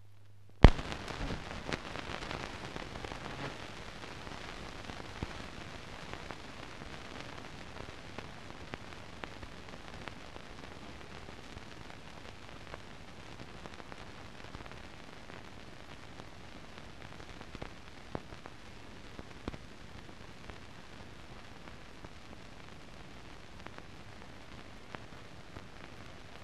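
Steady hiss with scattered crackles and pops: the blank soundtrack noise of an old silent film transfer. It starts with one loud click just under a second in, and the crackle thins out after a few seconds.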